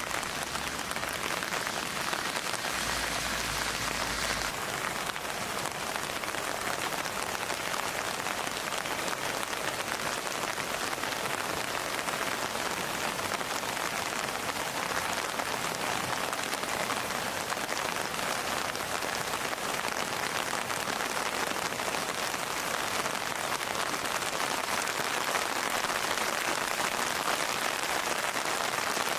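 Steady rain falling on a surface, an even, unbroken patter.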